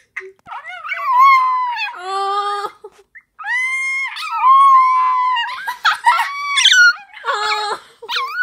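A dog howling: a string of long, wavering howls whose pitch rises and falls, with the calls crowding and overlapping in the last few seconds.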